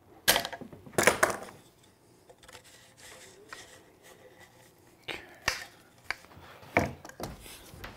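Clear plastic tubing and a plastic hopper being handled and fitted together by hand, with locking pliers on the tube: a few sharp plastic knocks and clatters about a second in and again after about five seconds, with soft rubbing and scraping between them.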